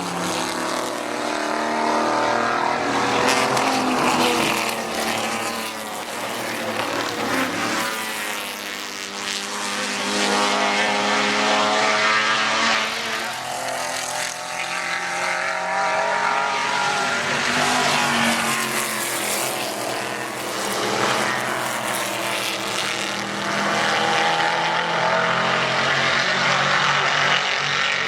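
Historic GT race cars passing at racing speed one after another, their engine notes rising and falling as each goes by.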